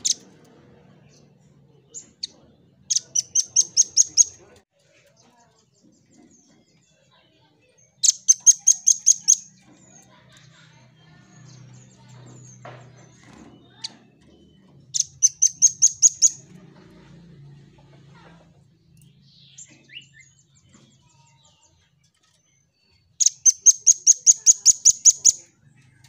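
Velvet-fronted nuthatch singing: four bursts of rapid, high, evenly spaced notes, about five or six a second, each burst lasting a second or two. A few single sharp call notes fall between the bursts.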